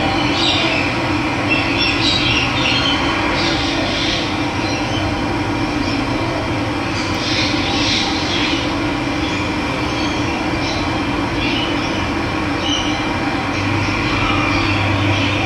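Steady rush of running water, with small birds chirping in short high bursts over it.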